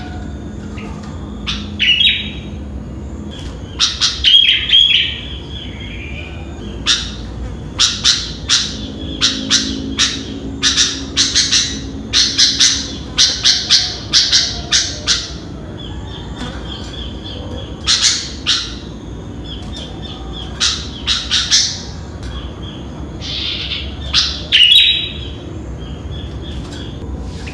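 Sooty-headed bulbul (kutilang) calling: loud, short, sharp chirps in quick runs, densest through the middle and coming again in shorter bursts near the end, over a steady low background noise.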